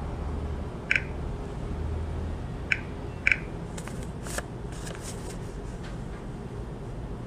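Short, sharp taps on a Smartmatic vote-counting machine's touchscreen keypad as a PIN is entered: one about a second in and two close together near three seconds. A brief spell of soft rustling follows, over a low steady hum.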